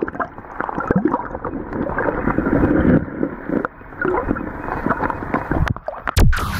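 River water sloshing and gurgling against a camera held underwater, muffled by the water, with scattered knocks. About six seconds in there is a sharp, loud splash as the camera breaks the surface.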